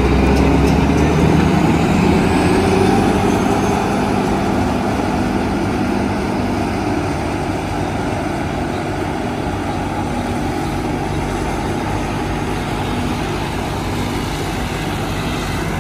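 New Holland self-propelled forage harvester running under load as it cuts and chops standing maize with its Champion 360 corn header. Loudest in the first few seconds, close by, then a steady, slightly quieter running as it moves off.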